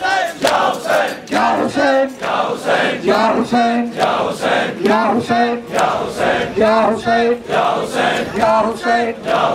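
A crowd of men chanting a Shia mourning chant in unison, with held sung notes, over the rhythmic slapping of hands on bare chests (matam), about two slaps a second.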